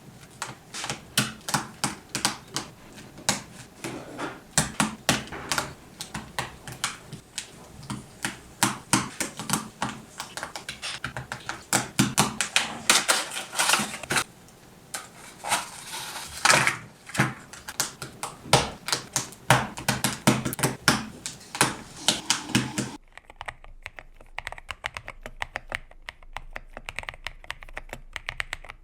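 Typing on a GMK67 mechanical keyboard with Akko V3 Cream Blue Pro tactile switches: fast, irregular key clacks. About twenty-three seconds in the keystrokes suddenly become quieter and thinner.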